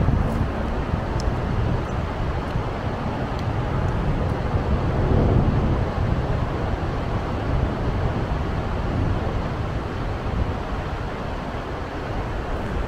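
Charter aircraft passing overhead: steady engine noise that swells slightly about five seconds in, mixed with wind rumbling on the microphone.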